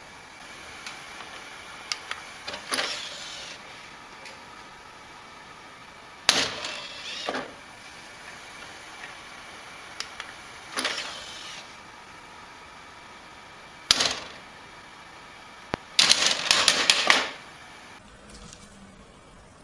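A desktop computer's DVD drive clicking and whirring as its tray is worked, in several short mechanical bursts with sharp clicks between them and a longer rattling burst near the end.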